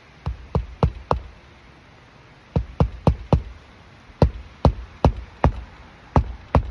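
Hammer driving roofing nails into a replacement asphalt shingle: sharp blows in runs of about four, roughly three a second, with short pauses between runs as each nail is set.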